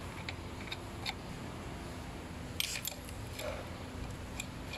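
Scattered light clicks and taps of small metal parts being handled while a damper is fitted to an electric scooter, the loudest a quick cluster of clicks about two and a half seconds in, over steady background noise with a faint hum.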